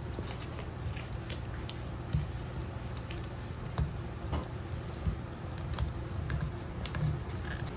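Scattered light clicks and taps over a steady low hum, with a few louder soft thumps.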